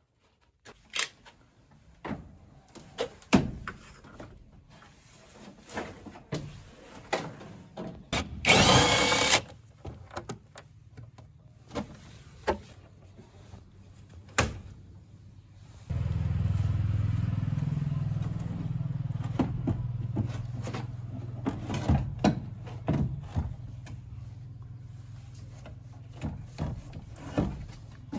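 Hand-tool work on a car: scattered sharp knocks and clicks, a loud one-second burst of a power tool about a third of the way in, then a steady low hum from about halfway through with more knocks over it.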